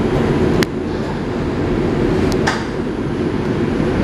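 Steady low rumble of an R142 subway car running along the track, heard from inside the car. Two sharp clicks come through, one about half a second in and another about two and a half seconds in.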